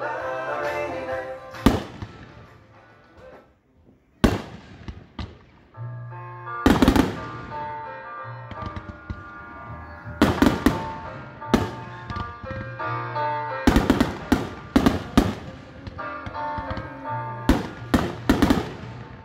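Aerial firework shells bursting: a dozen or so sharp bangs, some in quick clusters, with a lull a few seconds in. Music plays under the bursts throughout.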